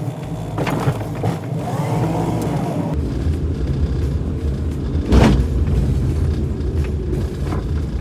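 Car cabin noise while driving: a steady low rumble of engine and tyres, which turns deeper and louder after an abrupt change about three seconds in. A single sharp thump comes a little past five seconds.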